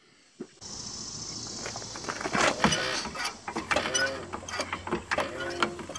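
Hydraulic floor jack being pumped by its long handle: a run of clicks and clanks with short squeaks, starting about half a second in.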